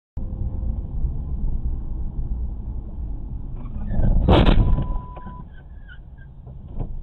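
Steady low road and engine rumble heard from inside a moving car, with a louder rushing surge about four seconds in that lasts about a second before settling back down.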